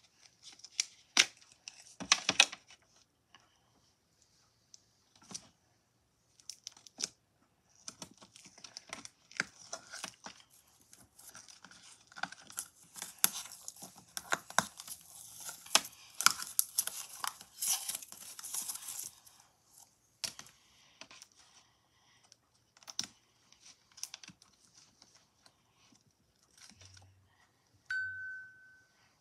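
Sticky pink slime being dug and pulled out of a clear plastic tub by hand, with dense crackling and tearing sounds, after sharp plastic clicks as the tub is opened. A short steady tone sounds near the end.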